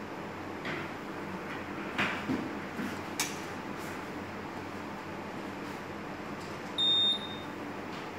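Steady electrical hum from a Leviton U3000 uninterruptible power supply running on the bench, with a few light clicks in the first few seconds and one short, high electronic beep about seven seconds in.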